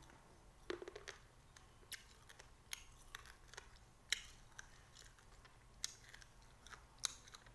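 Mouth sounds of a person chewing a lime: scattered sharp, wet clicks and smacks, with a cluster about a second in and single ones every second or so after.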